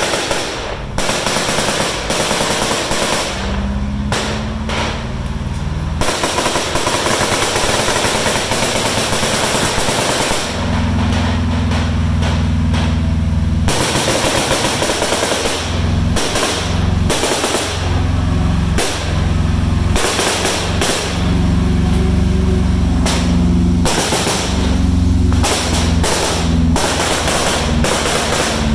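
Bursts of machine-gun and rifle fire, blank rounds in a battle re-enactment, with a tank engine running underneath as a steady low drone that comes and goes.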